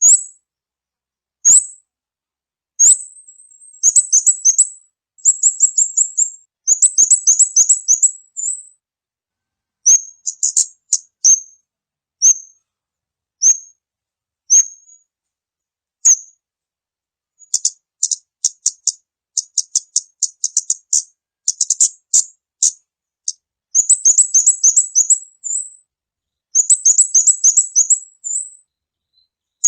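Kamade bird lure call: high, thin chirps, at first single and a second or so apart, then in quick chattering runs of many chirps with short pauses between runs.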